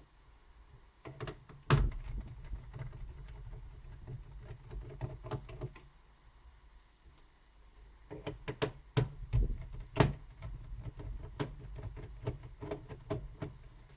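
Small screws being unscrewed from a laptop's plastic bottom case: quick runs of small clicks and scrapes from the screwdriver and case, with a couple of sharper taps. The activity comes in two stretches with a short pause between them.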